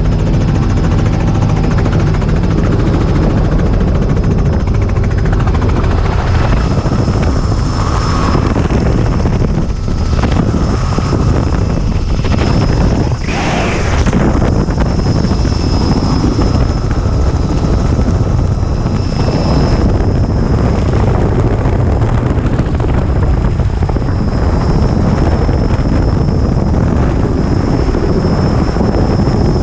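Helicopter rotor and engine noise, loud and steady, heard from inside the open-doored cabin, with air rushing past the doorway.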